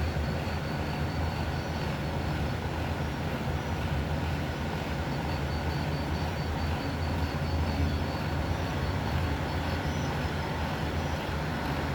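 Steady low rumble, with a faint, rapid high-pitched pulsing chirp that comes and goes.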